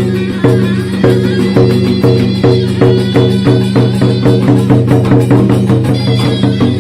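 Vietnamese funeral music: a drum struck in a regular beat that quickens from about two strokes a second to about four, over held low instrumental tones.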